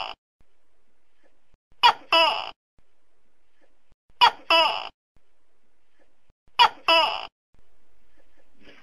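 Tokay gecko calling its two-note "to-kay": a short sharp note followed by a longer one, repeated about every two and a half seconds, with three full calls and another starting at the very end. A faint steady hiss lies between the calls.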